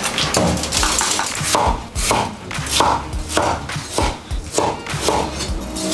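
Chinese cleaver chopping bell peppers on a wooden cutting board: a regular run of knocks, about two a second, starting about a second and a half in.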